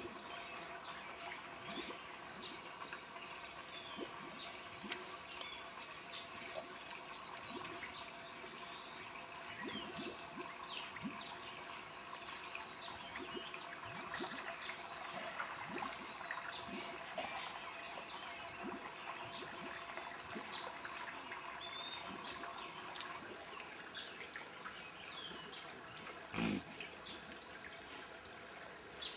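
Forest ambience of many birds chirping and calling, short high chirps scattered throughout. A single low thud sounds near the end.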